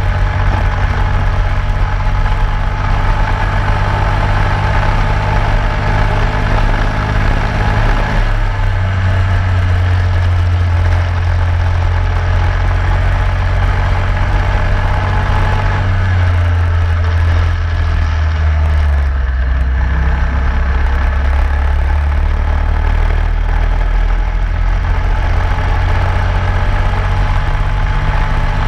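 Onboard sound of a racing kart's engine running hard, its note rising and falling as it speeds up on straights and slows for corners, with a steady rushing noise over it.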